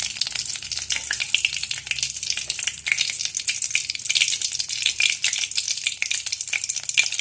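Panch phoron and bay leaves sizzling in hot mustard oil in a wok, a steady dense crackle of fine pops.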